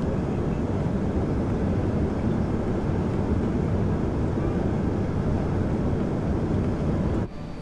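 Steady rushing cabin noise of an Airbus A380 on final approach in landing configuration, gear down and flaps fully extended: airflow and engine noise heard from inside beside the wing, heaviest in the low range. It cuts off suddenly near the end.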